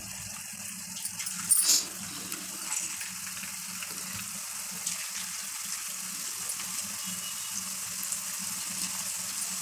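Chegodi rings of rice-flour and poha dough deep-frying in hot oil in an aluminium pan: a steady sizzle and crackle of bubbling oil, with a brief louder burst about a second and a half in.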